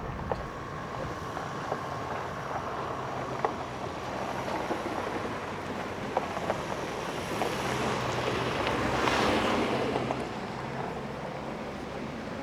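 Wind blowing steadily, with a gust that swells to its loudest about nine seconds in and then dies back down.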